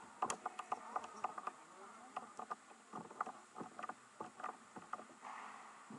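Irregular clicks and knocks of ice hockey sticks and puck on the ice, echoing around an indoor rink, with a short hiss near the end.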